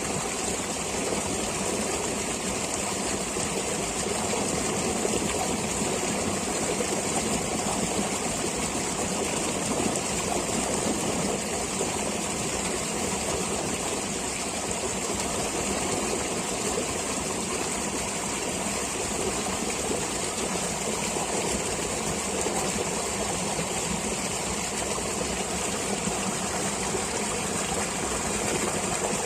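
Flowing stream water running steadily, a continuous rushing and trickling.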